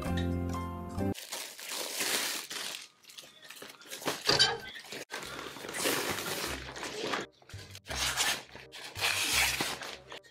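Plastic wrapping and a clothes dryer's fabric cover crinkling and rustling in irregular bursts as they are handled and unfolded. Background music is heard for about the first second, then cuts off.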